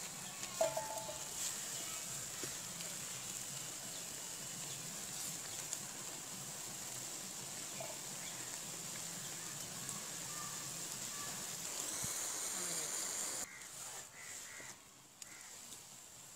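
Red spinach sizzling and steaming in a large aluminium kadai as it is stir-fried with a wooden spatula: a steady frying hiss that drops away sharply near the end.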